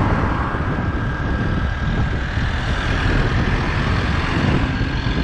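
Wind buffeting the microphone on a moving motorcycle, over the motorcycle's engine running steadily, with a faint steady high whine.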